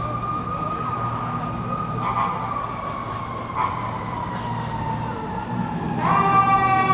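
Emergency vehicle siren wailing on a city street, its pitch sliding slowly down, then jumping back up louder about six seconds in and beginning another slow fall, over a low rumble of traffic.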